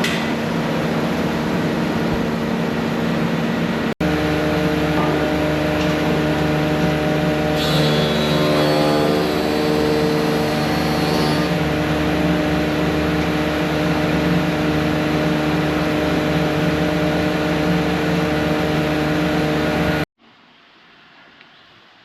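A workshop power tool motor running loud and steady with a constant hum, the pitch shifting a little under load partway through. It stops abruptly near the end, leaving quiet room tone.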